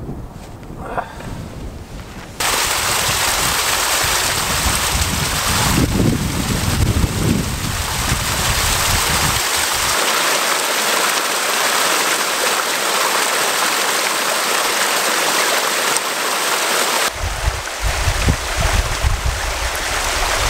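Water rushing loudly in a small meltwater cascade close to the microphone, a steady hiss that starts abruptly a couple of seconds in and stops suddenly near the end. Wind buffets the microphone at the start and again after the water stops.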